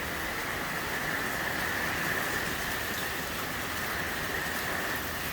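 Heavy hurricane rain pouring down steadily, a continuous even hiss.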